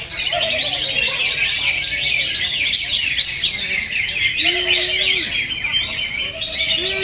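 Cucak ijo (green leafbirds) singing a rapid, unbroken chattering song of quick chirps and trills, as in a songbird contest, with a few lower gliding whistled notes beneath.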